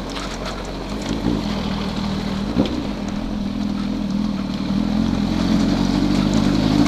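Honda CB1000R inline-four motorcycle engine running steadily while riding, getting a little louder over the last couple of seconds.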